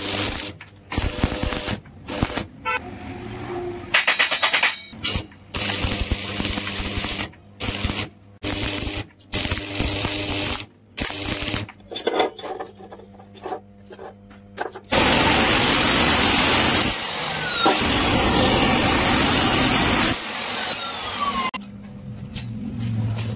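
Stick arc welding on steel, the arc crackling and sputtering in short runs broken by pauses. About fifteen seconds in, a loud steady grinding noise lasts about five seconds.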